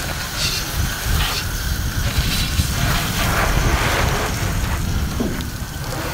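Garden hose with a hose-end sprayer bottle spraying cleaning solution onto an aircraft's propeller and engine cowling: a hiss of spray that swells and eases several times, over a steady low rumble.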